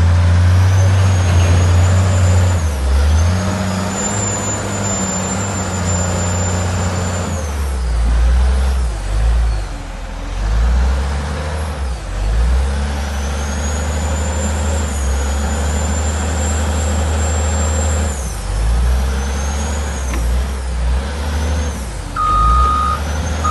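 Cat 980H wheel loader's six-cylinder C15 diesel engine working under load, revving up and easing off repeatedly, with a high whine that climbs and holds twice. Its reversing alarm starts beeping near the end.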